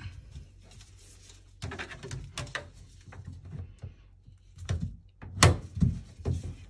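Plastic clicks and knocks from an Archimedes bath lifter's guide rails and side transfer flap being handled and fitted into place, with the loudest knock about five and a half seconds in.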